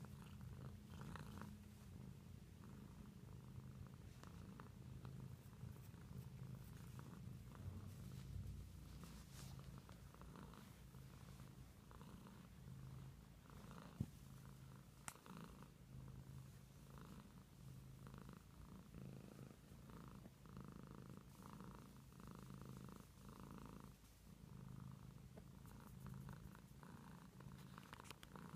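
Domestic cat purring steadily and faintly, a continuous pulsing low rumble. A single brief click about halfway through.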